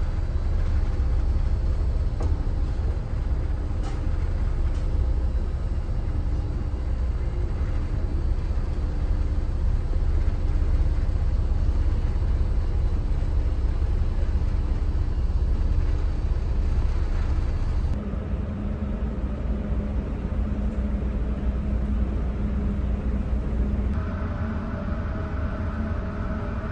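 Steady low rumble and hum of a large car ferry's engines and onboard machinery. The background changes abruptly about two-thirds of the way through and again near the end.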